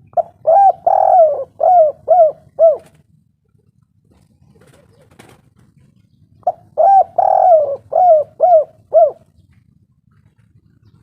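Spotted dove cooing: two phrases of about six short coos each, several seconds apart, with the second coo of each phrase drawn out longer.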